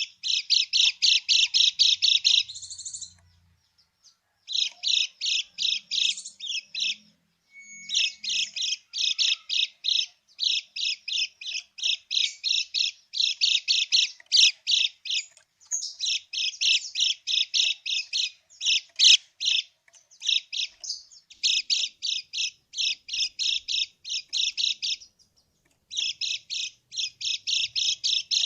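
Kecial kuning giving its harsh 'krekek' chatter: fast runs of short, high notes in bursts of a second or two, with brief pauses between them. It is a lure recording meant to provoke captive birds into calling back.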